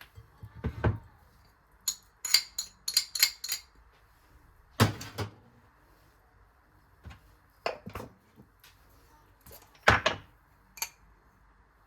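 Dishes and cutlery being handled in a kitchen: a quick run of light, high clinks about two to three seconds in, and a few separate heavier knocks, the loudest about five and ten seconds in.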